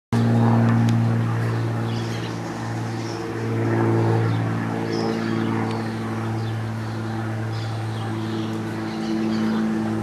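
Steady low mechanical hum that swells and fades a little, with faint high chirps scattered over it.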